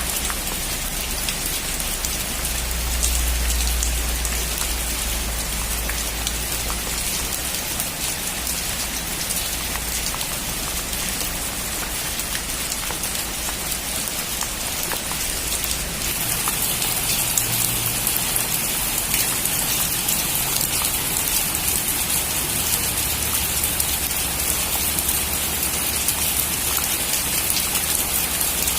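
Heavy rain drumming steadily on a metal roof, a dense patter of drops, with a low rumble in the first few seconds; the rain grows louder about halfway through.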